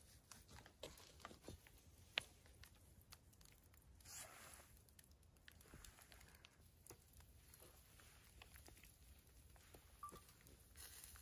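Faint, scattered ticks and crackles from a wood fire burning in a small steel grill under skewered vegetables and mushrooms, with one sharp click about two seconds in.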